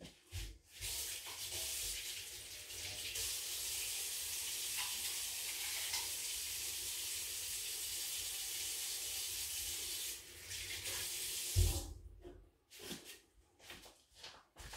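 Kitchen tap running as a knife is rinsed under it, steady for about ten seconds, then turned off with a low knock.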